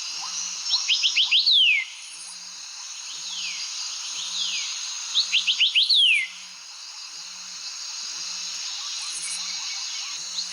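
Mobile phone ringtone or alarm tone made of birdsong: a quick run of about six rising chirps ending in one falling whistle, repeated about every four and a half seconds over a steady hiss and a soft low pulse.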